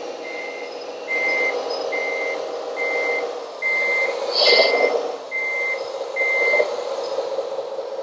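Reversing beeper of a radio-controlled scale truck or construction machine's sound module, sounding a steady series of short beeps a little faster than once a second over a steady simulated engine hum, with a brief hiss about halfway; the beeping stops near the end.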